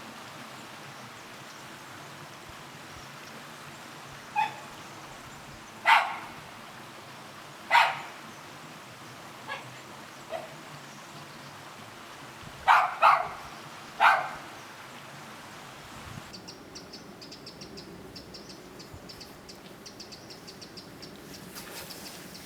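A dog barking: about eight short, separate barks at irregular intervals, two of them in a quick pair, over a steady background hiss. From about two-thirds of the way in, crickets chirping in a fast, even pulse.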